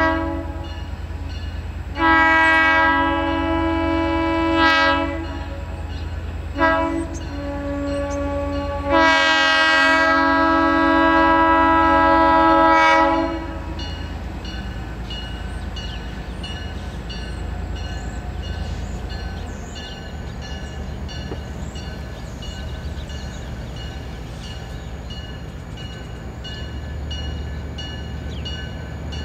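Diesel freight locomotive's air horn sounding a crossing signal as the train approaches: a brief toot, then a long blast, a short one and another long one. A steady low diesel engine rumble runs under it.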